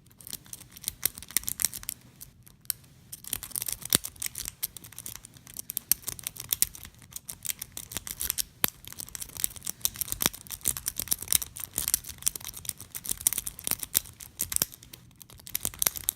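Metal lock pick scraping and clicking rapidly over the pin tumblers of a vintage BEST padlock: a dense run of quick irregular clicks and scrapes, broken by two short pauses.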